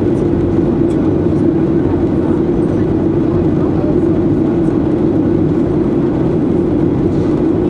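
Steady cabin noise heard inside a Boeing 737-800 in flight: the CFM56 engines and rushing airflow make an even drone with a strong low hum, unchanging throughout.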